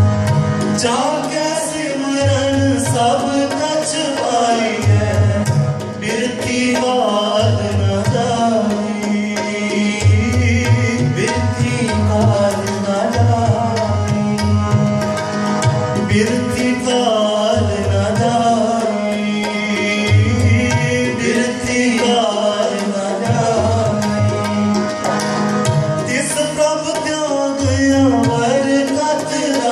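Sikh shabad kirtan: two harmoniums sustaining chords and melody, a tabla playing a steady rhythm with deep bass strokes, and a voice singing.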